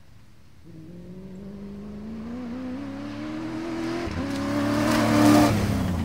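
Cross-country rally pickup truck approaching at speed and passing close by. The engine note climbs under acceleration, dips briefly at a gear change about four seconds in, and peaks loudest with a rush of tyre and gravel noise as the truck goes past near the end, its pitch then falling away.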